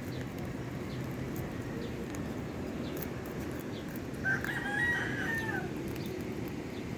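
A single drawn-out animal call, about a second and a half long, starting about four seconds in, over steady low background noise.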